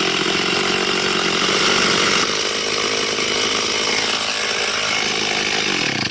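Stihl MS360 two-stroke chainsaw running at full throttle, ripping a bur oak log lengthwise in a chainsaw mill attachment. Near the end its pitch falls and the saw cuts off.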